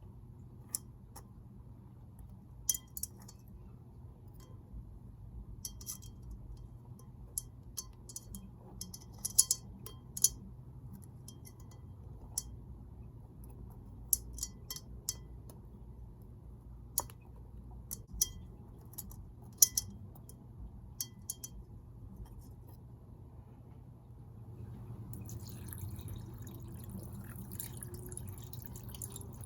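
Irregular sharp clinks and taps on a glass vase aquarium, some loud, some faint. Near the end a steady trickle and splash of water sets in.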